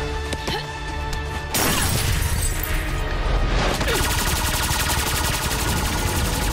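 Animated-battle sound effects over dramatic score music: a sudden blast about a second and a half in, then a rapid string of fiery energy-bolt blasts from about four seconds in as fire strikes the monster.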